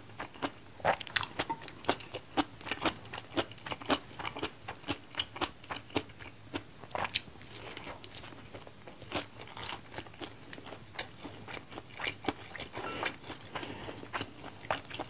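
Close-miked chewing and biting of stir-fried ramen noodles with vegetables: a steady run of wet mouth clicks and small crunches, about two to three a second.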